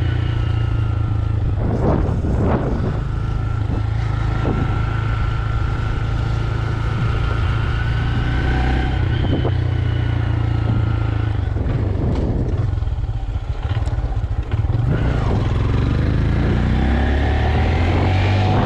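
Stock 2025 Honda Grom's single-cylinder engine running under way, the bike riding along at steady throttle. Its note dips briefly about two thirds through, then climbs steadily near the end as it accelerates.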